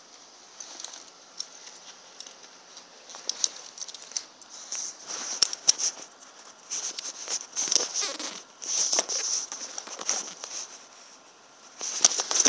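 Irregular rustling, crackling and clicking from a handheld phone being moved about, sparse at first and busier and louder from about halfway through.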